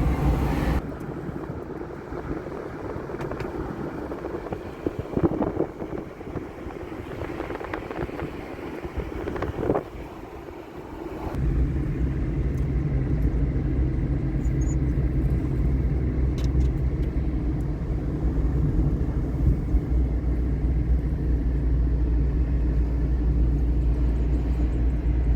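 Steady low rumble, quieter for the first ten seconds or so with a few brief knocks, then louder and even from about eleven seconds in.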